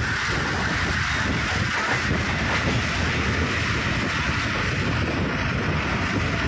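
Moving passenger train heard from an open window: a steady rumble of wheels on the track, with wind rushing past the microphone.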